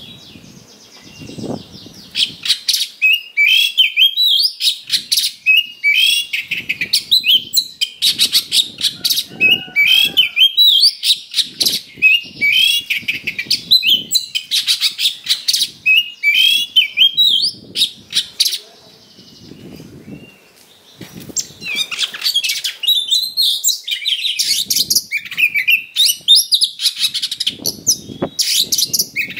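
Oriental magpie-robin singing a loud, fast, rough fighting song of rapid chattering phrases packed with mimicked fill-ins. It starts about two seconds in, breaks off for a couple of seconds about two-thirds through, then resumes.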